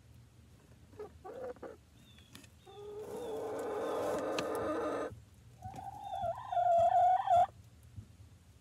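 A hen calling in a nest box: a short call about a second in, a long drawn-out call lasting about two seconds, then a louder, higher call that wavers in pitch near the end.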